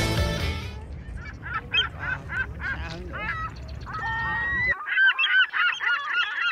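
Gulls calling: a rapid run of short squawks that rise and fall in pitch, with one longer held note about four seconds in.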